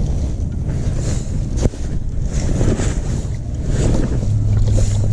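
Wind buffeting the microphone as a loud, uneven low rumble, with a single knock about a second and a half in.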